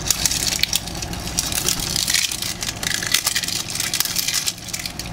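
Plastic wrapping crinkling and crackling as it is peeled by hand off a plastic capsule ball, in a busy run of small crackles, with a steady low hum underneath.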